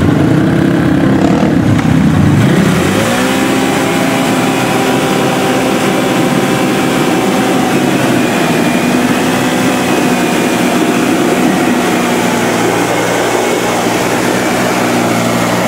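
Quad ATV engine revved hard, then held at a steady high rev from about three seconds in, its pitch wavering slightly. The quad is stuck in a mud-filled trench with its wheels spinning and throwing mud.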